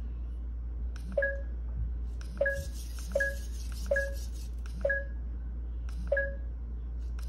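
Eilik desktop robot beeping as its touch control is pressed to step through its function menu: about six short two-pitch electronic beeps, a second or so apart at uneven intervals. Most are preceded by a faint tap of the finger.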